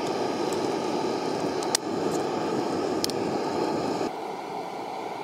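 A pot of lake water with madrone bark in it boiling: a steady rushing, bubbling noise with a couple of sharp clicks. The noise drops a little about four seconds in.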